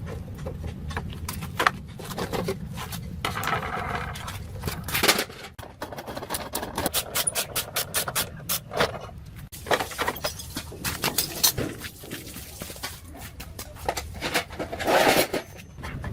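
Hand work on a motorbike: repeated sharp metallic clicks and knocks with a few short scraping bursts, over a low steady rumble.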